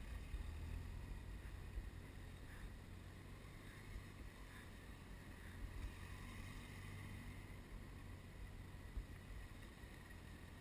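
Motorcycle engine running faintly and steadily at low revs as the bike rides tight circles at walking pace, with light wind noise on the microphone.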